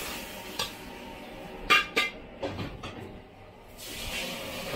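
Metal ladle scraping and knocking against a steel wok as a stir-fry is pushed out onto a plate, with a few sharp clinks, the loudest just under two seconds in, over steady kitchen background noise.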